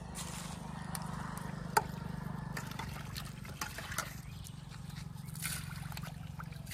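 Pond water trickling and splashing as a small steel bowl is dipped into the shallows and emptied. There is one sharp click about two seconds in and a few lighter ticks later, over a steady low hum.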